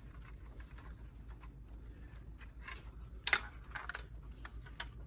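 Fan cables and small plastic connectors being handled inside a PC case: faint clicks and rustles, with one sharper click about three seconds in.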